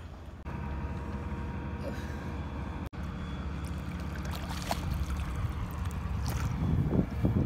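Water sloshing and splashing around a swimmer at a boat's hull as he ducks under, over a steady low rumble; the splashes get louder near the end.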